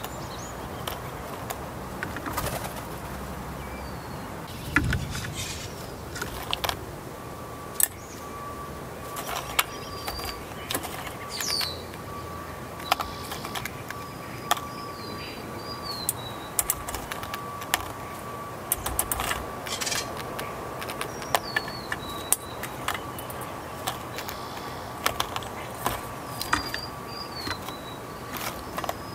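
A Steller's jay picking through a steel bowl of peanuts in the shell: sharp clicks and knocks as shells and beak strike the bowl and each other, with a few wing flaps. Short high bird chirps sound now and then, and a faint steady high tone comes in after about seven seconds.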